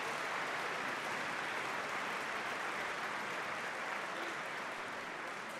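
Audience applauding: steady clapping from a large crowd, easing off slightly near the end.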